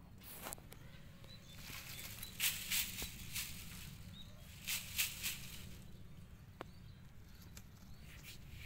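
Dry fallen leaves and grass rustling and crackling in a few short bursts as a kitten scrambles and pounces through them, the loudest about two and a half and five seconds in, over a low steady rumble.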